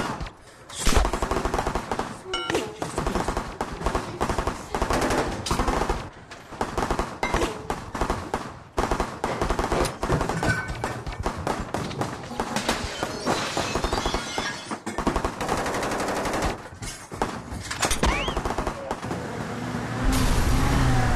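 Film battle sound: automatic rifle and machine-gun fire, long stretches of rapid shots. Near the end a jeep's engine rumbles as it drives up.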